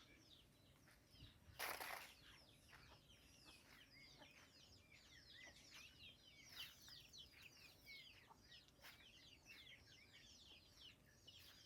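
A flock of chickens peeping faintly: many short, high, falling chirps overlapping throughout. A brief rush of noise comes about two seconds in.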